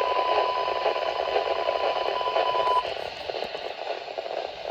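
A NOAA Weather Radio alert tone heard through a weather radio receiver: one steady, high, pure tone held for nearly three seconds over radio static, which goes on alone after the tone stops.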